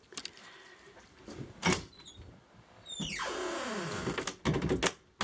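Closet door being opened: a click and a knock, then a scraping slide about three seconds in whose pitch falls, and a few knocks near the end.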